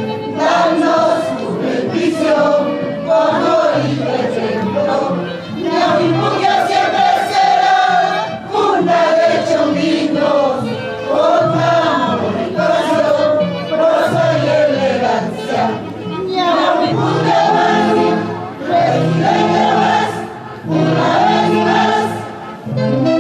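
A group of voices singing together over band accompaniment with a repeating bass line.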